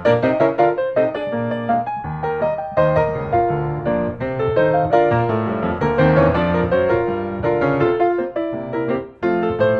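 Background piano music: a lively run of quick notes.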